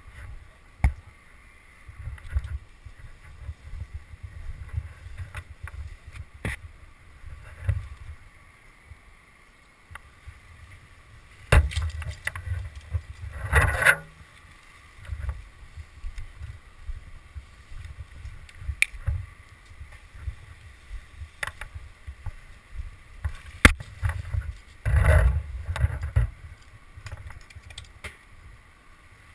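Low rumbling wind and handling noise on a tree climber's head-mounted camera as he moves on the trunk, with scattered sharp knocks and clicks from his gear. Two brief rustling scrapes stand out, about halfway through and again near the end.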